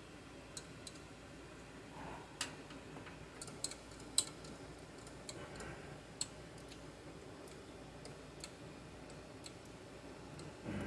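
A 10 mm ratchet wrench clicking as it turns down a lower alternator mounting bolt: faint, scattered clicks at uneven spacing, a few close together now and then.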